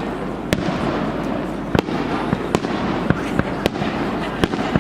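Fireworks exploding in a dense barrage: a continuous rumble of bursts with sharp, separate cracks every half-second or so.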